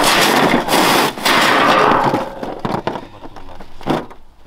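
Lumps of iron ore clattering and sliding onto a steel sheet, a dense rattling for about two seconds. Then a few scattered knocks as the stones settle and are raked.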